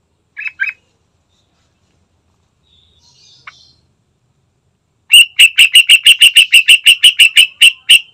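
Yellow-vented bulbul calling: two short notes near the start, then, about five seconds in, a loud, fast run of sharp repeated notes, about six a second.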